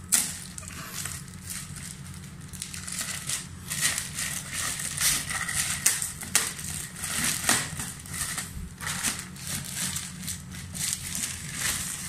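Thin clear plastic bag crinkling and crackling as it is handled and pulled off a flat-screen TV, in irregular rustles with a sharp crackle at the very start.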